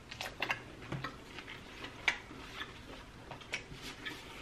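Close-up eating sounds: scattered small, sharp, wet clicks of chewing and of gloved fingers picking apart curried shellfish, a little more than one a second.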